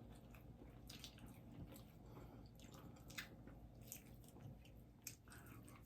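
Faint chewing: soft, wet mouth clicks and squishes while food is eaten close to the microphone.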